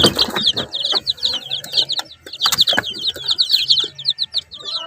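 A brood of newly hatched ducklings and chicks peeping nonstop in rapid, high, falling peeps several a second, with occasional short scuffling knocks.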